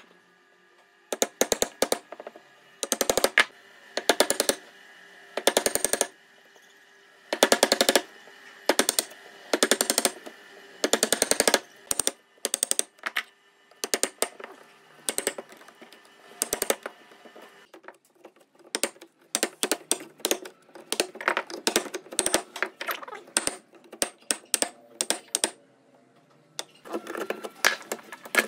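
Power chisel hammering a mortise into a block of wood, in short bursts of rapid blows about a second long with brief pauses between.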